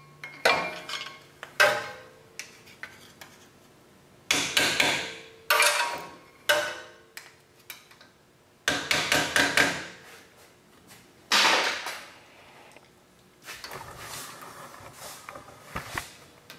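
Hammer blows seating the metal dust cap onto the front wheel hub of a 100 Series Toyota Land Cruiser, with about seven irregularly spaced metallic strikes that each ring briefly and die away, the last about 11 seconds in. Softer handling noise follows, as the cap is set in place over the freshly adjusted wheel bearing.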